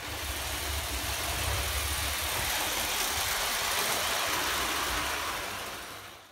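Lionel O gauge toy trains running on three-rail tinplate track: a steady whirring rumble of motors and wheels on metal rails that fades out near the end.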